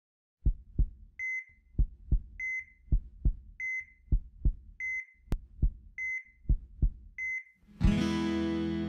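Heartbeat sound effect: a pair of low thumps a little over once a second, each pair followed by a short high beep like a hospital heart monitor, six times over. Near the end a loud hit opens into a chord that rings on.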